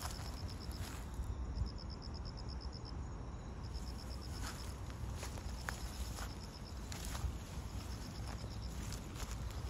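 Crickets chirping at night: short trills of rapid, even pulses that repeat every second or two, with a few scattered soft clicks and rustles.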